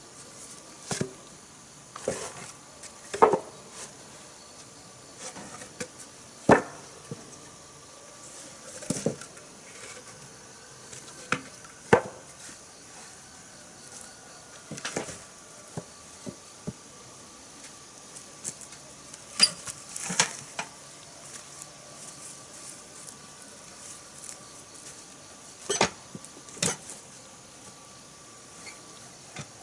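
Scattered sharp knocks and clacks of wooden boards being handled, a dozen or so at irregular intervals of one to three seconds. Under them runs a faint steady insect drone.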